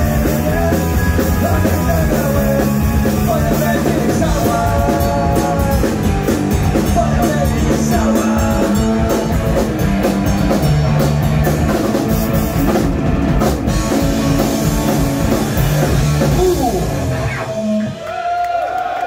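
Punk rock band playing live: distorted electric guitar, electric bass, a drum kit and some singing. Near the end the full band stops and a single held guitar note rings on as the song finishes.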